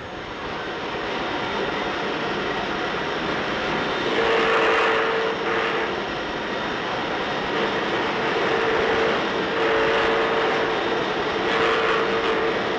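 Woodworking machines boring and shaping wooden golf club heads, running with a steady whirring noise. A higher, steady machine whine comes and goes several times from about four seconds in.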